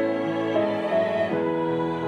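Women's choir singing a hymn in unison, holding long notes that move in steps about every half second.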